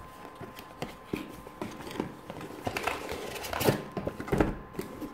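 Cardboard packaging being handled as an inner white cardboard box is taken out of a retail box: scattered light taps, scrapes and rustles, a little busier in the middle.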